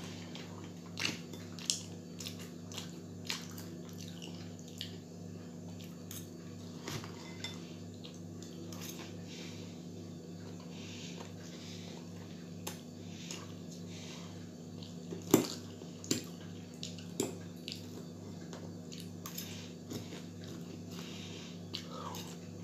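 A man eating french fries with a fork from a bowl: chewing, with the fork clicking against the bowl now and then, the loudest click about two-thirds of the way through. A steady low hum runs underneath.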